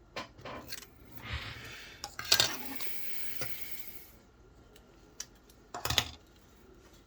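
Small hard parts being handled on a work surface: a few sharp clicks and clatters, with a stretch of rustling in between.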